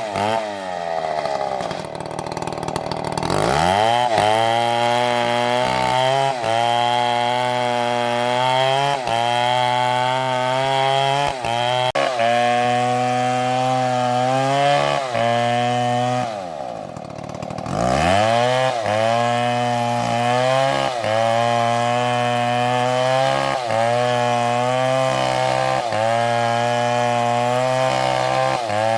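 STIHL chainsaw running at high revs while cutting wood, its pitch dipping briefly every second or so under load. Twice, just after the start and about 16 seconds in, the engine drops to a low idle and then revs back up.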